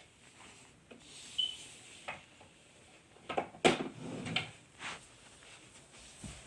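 Handling noise from a smartphone being picked up and worked: scattered clicks and knocks, with a cluster of louder knocks and rubbing about halfway through, and a short high beep about a second and a half in.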